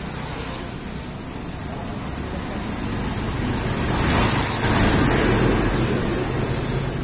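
A motor vehicle passing on the road, its noise swelling to a peak about four to five seconds in and then fading, over a steady low engine hum.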